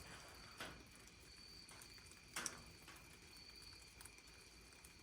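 Near silence: faint room tone with a thin steady high whine and two soft knocks, about half a second and two and a half seconds in.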